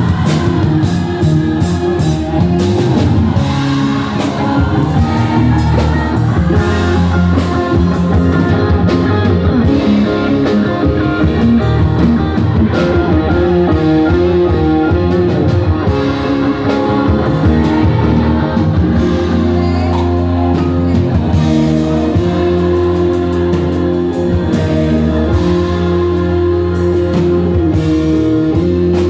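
Live church band playing a gospel song: electric guitars, bass guitar, keyboards and a drum kit.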